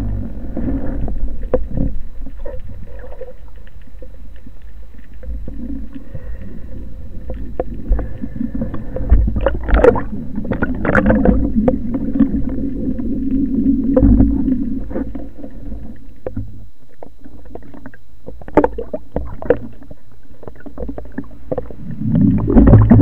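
Underwater sound through a speargun-mounted camera's housing: a low, muffled rumble of moving water with scattered clicks and knocks. It grows louder about a second before the end, with bubbling near the surface.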